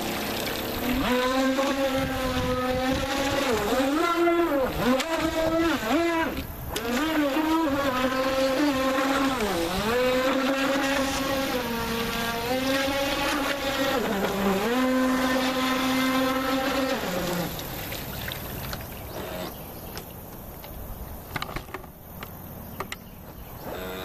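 Brushless electric motor of a radio-controlled speedboat on a 3S LiPo whining at speed, its pitch dipping and rising again and again with the throttle. The whine stops about seventeen seconds in, leaving quieter water and background noise.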